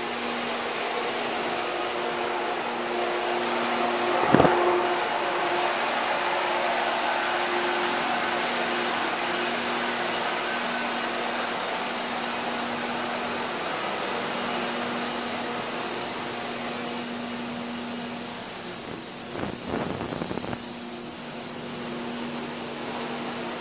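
Steady roar of a warship's gas-turbine engineering space underway, LM2500 gas turbines and ventilation running, with a steady two-tone hum. A single sharp knock about four seconds in.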